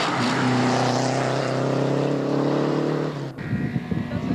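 Renault 5 rally car's engine running at steady, held revs as it takes a tight bend, its pitch nearly level. About three seconds in the sound cuts abruptly, and a second of rough, irregular crackle and rumble follows as the next rally car approaches.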